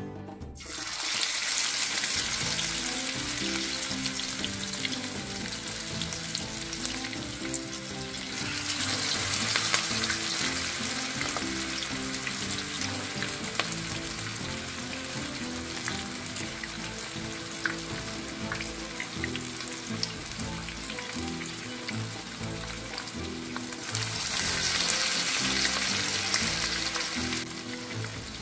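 Chapli kabab patties sizzling as they shallow-fry in hot oil in a pan. The sizzle starts about a second in and swells louder twice as more patties are laid into the oil.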